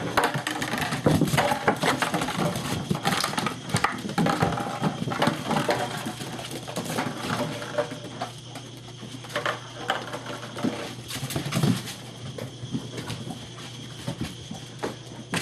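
German Shepherd puppies playing together: irregular scuffling and pattering of paws with short puppy noises among it, busier in the first half.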